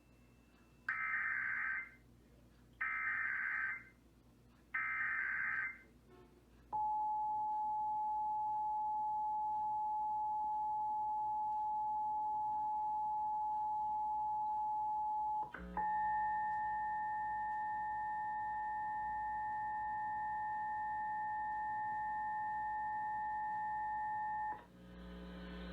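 Emergency Alert System test tones: three short bursts of SAME header data, each about a second long, followed by a long steady attention tone. About two-thirds of the way through the tone breaks off briefly and resumes with a second, higher tone added, running for about another nine seconds before cutting off.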